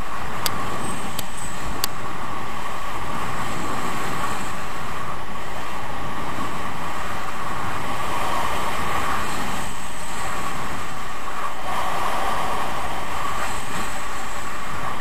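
Skis running and scraping over groomed, hard-packed snow at speed, with wind rushing over the camera's microphone: a loud, steady rushing hiss. Three sharp clicks come in the first two seconds.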